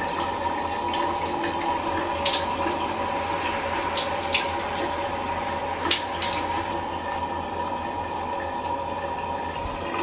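Shower running: water spray hissing steadily onto a tiled wall, with a few brief sharp drips or splashes.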